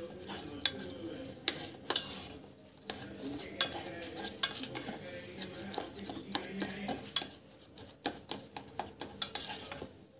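A hand squishing and mashing water-soaked bread in a small stainless-steel pot, with sharp, irregular clinks and knocks against the metal pot.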